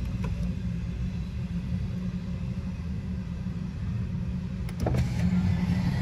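Freight train's double-stack container cars rolling past, a steady low rumble of wheels on rail, heard from inside a car. It grows a little louder near the end.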